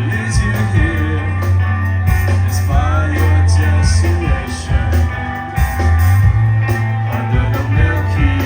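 A live rock band plays an instrumental passage: electric guitar lines, some sliding in pitch, over a steady bass line and drums with cymbal hits.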